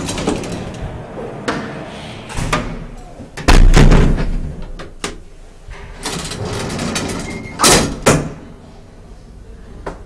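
Elevator doors being handled, with knocks and clattering. There is a heavy thump about three and a half seconds in and a pair of sharp knocks near eight seconds.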